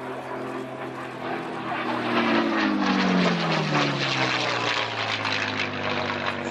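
P-51D Mustang's Packard Merlin V-12 engine and propeller running at display power as the fighter passes overhead. The engine note swells and drops in pitch as it goes by, about two to three seconds in, then carries on at a steady lower note.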